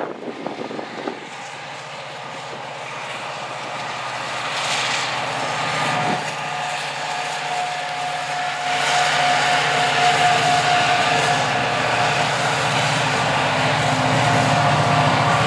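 BNSF diesel-electric freight locomotives approaching and passing, their engines growing louder over the first half and then holding at a steady drone. A steady high whine sounds through the middle.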